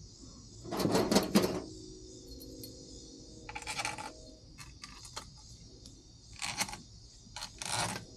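Metal tools and small metal parts clinking and rattling in a few short bursts, with single sharp clicks between, over a steady faint hiss.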